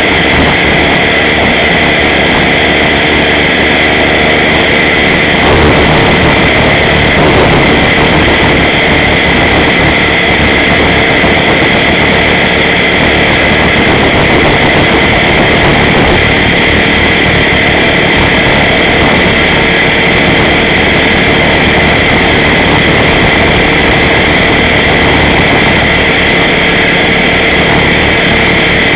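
Align T-Rex 500 electric RC helicopter in flight, recorded from on board: a loud, steady motor and gear whine with one constant high tone and one lower tone over the rush of the spinning rotor.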